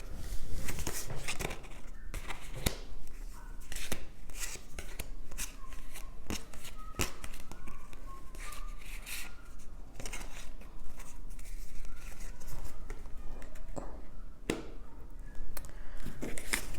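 A deck of oracle cards being shuffled by hand: an irregular run of quick clicks and slaps of card against card.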